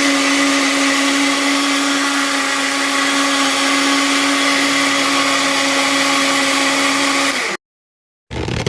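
A small electric motor running at a steady pitch, a loud, even whir with a constant hum, which cuts off suddenly near the end. A different short sound starts just before the end.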